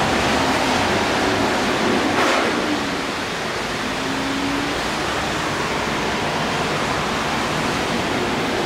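Electric commuter train rolling away along the tracks: a steady rushing noise of wheels on rail that eases off slightly about three seconds in.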